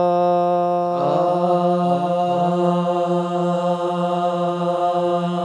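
A group of men's voices holding one sustained note together, with more voices sliding in to join about a second in. The held tone wavers, which the instructor calls wavy ('متموج'): a sign of the voices not being fully matched in this warm-up exercise.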